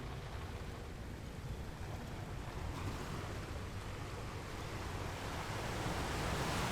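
Sea waves and wind over open water, with wind rumbling on the microphone, growing a little louder toward the end.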